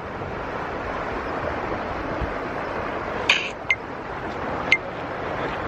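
Steady rush of flowing creek water, with a few short, sharp clinks about halfway through.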